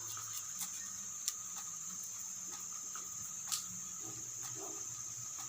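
Insects chirring in one steady high-pitched drone, with a few sharp clicks, the loudest about a second in and again about halfway through.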